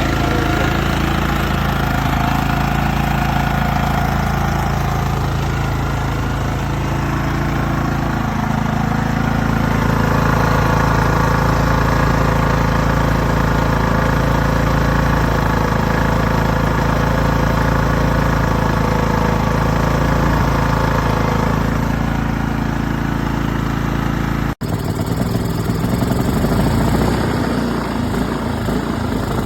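maXpeedingrods MXR4000GT inverter generator running steadily. Its engine note shifts over the first several seconds and then holds. There is a sudden break about five seconds before the end, after which it runs on with a rougher sound.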